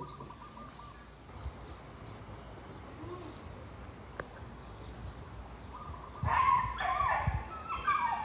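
Quiet outdoor background, then from about six seconds in a string of short, high yelping animal calls.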